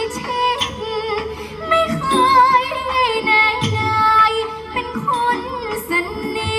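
A woman singing a likay song, her voice sliding and wavering through ornamented phrases, over instrumental accompaniment with regular low drum beats.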